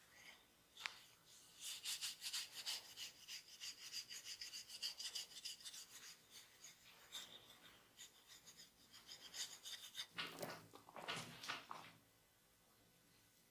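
Hands rubbing and massaging skin and hair in quick, quiet rubbing strokes, with a few fuller strokes near the end.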